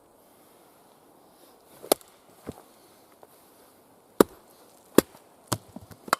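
Axe chopping and splitting wet, partly rotten wood: a run of sharp separate strikes, about six of them spread over the last four seconds, some loud and some lighter.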